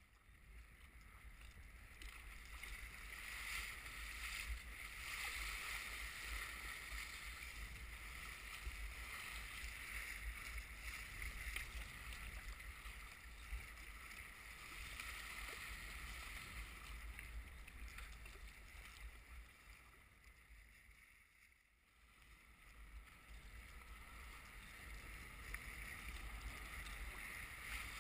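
Water splashing and rushing along an Eddyline Raven sea kayak's hull and paddle blade in wind-driven chop, with a steady low wind rumble. The splashing eases briefly about three-quarters of the way through, then builds again.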